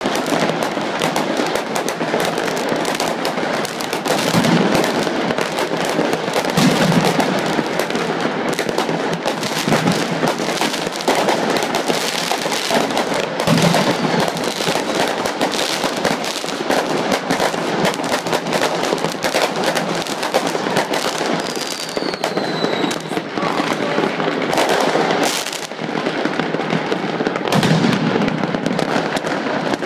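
Fireworks and firecrackers going off at close range in a dense, continuous crackle of many pops and bangs, with a short falling whistle about two-thirds of the way in.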